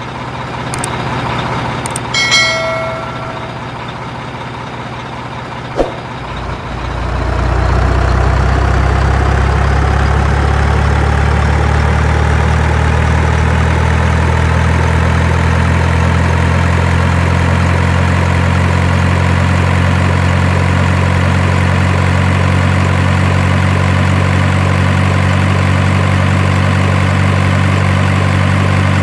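A few clicks and a short beep, then about seven seconds in a truck engine sound starts and runs steadily at idle with a low drone.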